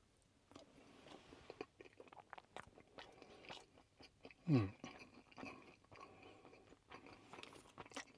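A man chewing a mouthful of chicken-and-vegetable rice ball close to the microphone: soft wet chewing with many small clicks and smacks. About halfway through comes a short hum falling in pitch, the loudest moment.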